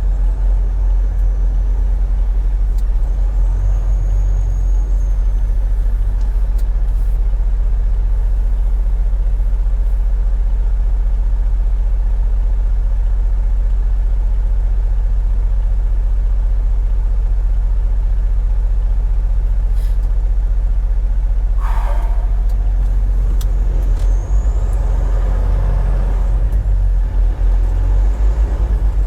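Semi-truck heard from inside the cab while driving: a steady, loud low rumble of engine and road. A short falling squeal comes about 22 seconds in.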